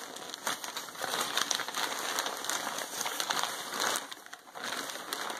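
Paper wrapping of a steamed silk bundle crinkling and rustling as it is unrolled by hand, with a brief lull about four seconds in.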